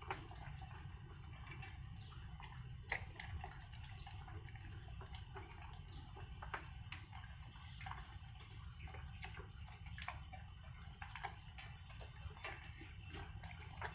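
Dog eating kibble mixed with moist food from a stainless steel bowl: faint, irregular crunching and clicking as it chews, with one sharper click about three seconds in.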